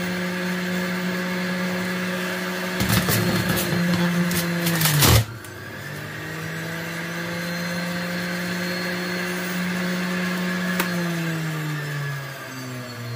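Electric centrifugal juicer motor running with a steady whine. About three seconds in comes a loud burst of clattering and grinding as produce is forced onto the spinning cutter disc; the motor bogs down sharply under the load, then climbs back to speed. The pitch sags again near the end.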